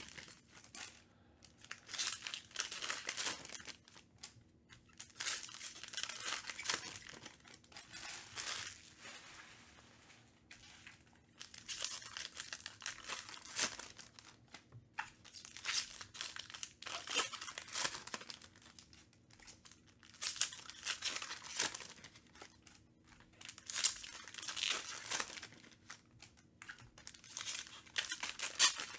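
Foil wrappers of Panini Prizm baseball card packs being torn open and crinkled, in repeated bursts of ripping with short pauses between.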